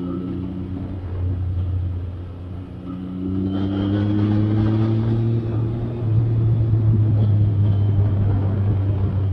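Triumph Sprint ST 955i's three-cylinder engine on the road: the note drops as the throttle closes at the start, then from about three seconds in it climbs steadily in pitch as the bike accelerates, getting louder about six seconds in.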